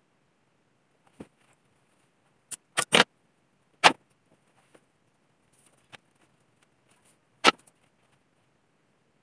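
Scattered sharp clicks and knocks, about seven in all, the loudest about three and four seconds in and another near the end: hobby-horse bridles and halters being handled and taken from their wall hooks, buckles and clips knocking.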